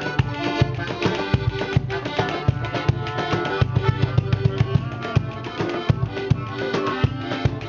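Live band playing instrumental music, with drums and percussion keeping a steady, busy beat under sustained melodic instrument notes.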